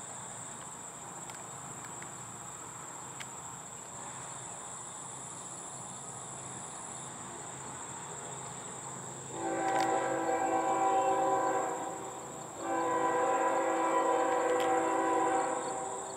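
Locomotive air horn sounding two long blasts, each a steady multi-note chord lasting a few seconds, separated by a brief gap, starting a little past halfway. Under it runs a steady high chirring of insects.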